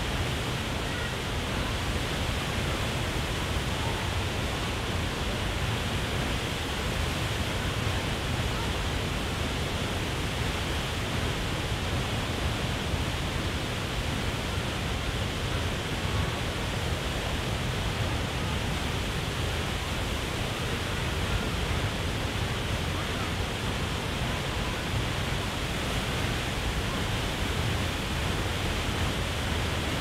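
Waterfall rushing steadily: a continuous, even noise of falling water that does not change.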